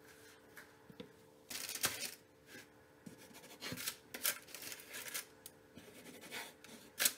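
Wooden spatula scraping under baked buns on a parchment-lined baking tray, with the parchment paper rustling and the buns set down on a wooden cutting board, in several short bursts with a sharper one near the end. A faint steady hum runs underneath.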